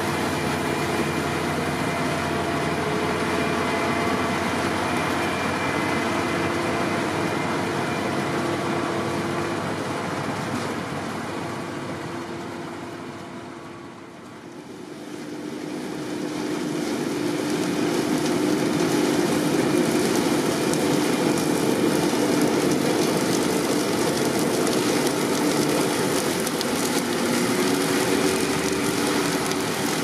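Diesel engines of Fendt tractors running under load together with the machinery of a Grimme Ventor 4150 potato harvester at work lifting potatoes. The sound is loud, fades to its quietest about halfway through, then grows loud again as the machines come close.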